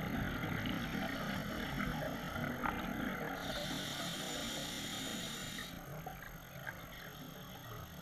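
Scuba diver breathing underwater through a regulator: a low gurgling rumble of exhaled bubbles, then a hissing inhale through the regulator lasting about two seconds in the middle.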